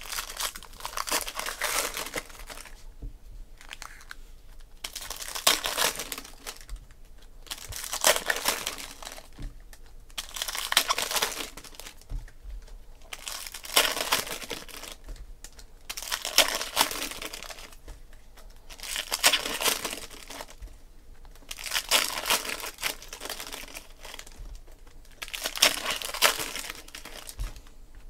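Foil trading-card pack wrappers being torn open and crinkled one after another, a burst of crinkling about every two and a half to three seconds.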